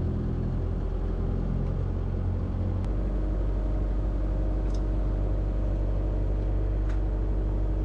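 Diesel engine of a compact track loader or mini excavator running steadily; its low note changes about three seconds in, as the load or throttle shifts. A few faint clicks sound over it.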